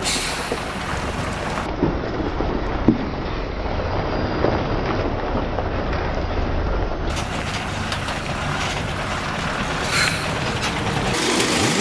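Heavy loaded lorry's diesel engine running as the truck creeps slowly round a tight hairpin bend, a steady low drone, with a short knock about three seconds in.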